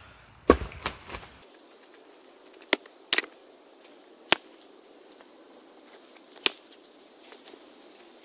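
Several separate wooden knocks and clunks of birch rounds and split pieces being handled and stood up for splitting. The loudest comes about half a second in and is followed by two quicker ones; lighter knocks come at intervals after that.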